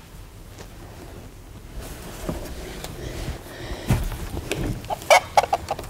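Backyard chickens clucking, a quick run of short clucks near the end, with a knock or two of handling in the wooden coop shortly before.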